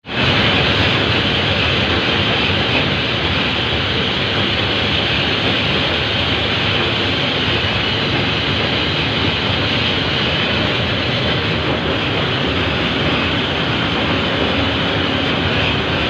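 Paddy-husking and flour-milling machinery running steadily: a loud, even mechanical din without pauses.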